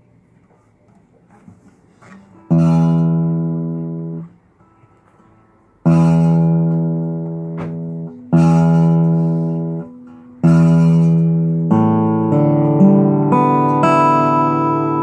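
Dixon model 756 acoustic guitar with a buzz on its E string. The E string is plucked four times, each note ringing a second or two before it is damped. Then several strings are picked one after another and left to ring together.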